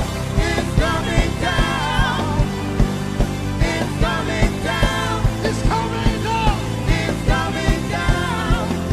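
Live gospel worship band playing an upbeat song with a steady drum beat and a melody line over it.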